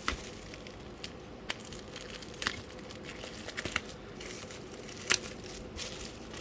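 A taped parcel being pulled open by hand: packing tape and wrapping crackling and snapping as they tear, in scattered sharp cracks, the loudest about five seconds in.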